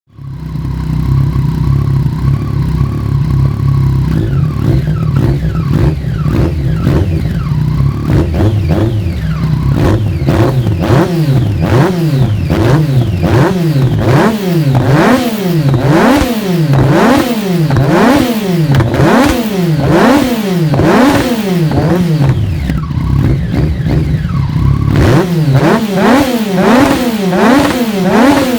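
Yamaha MT-09's three-cylinder engine breathing through a Mivv full-system exhaust. It idles at first, then is revved again and again in quick blips, about one a second, each rising and falling in pitch. It settles briefly near the end and is revved once more.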